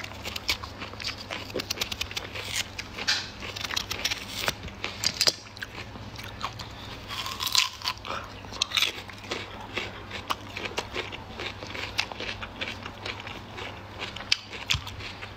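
Biting into and chewing crisp, firm peach flesh: many small, irregular crunches.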